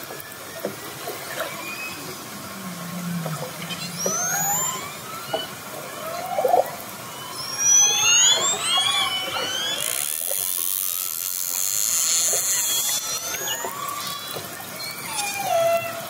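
Orcas heard underwater through a hydrophone: many overlapping rising and falling whistles and calls, with a few seconds of high hissing noise midway.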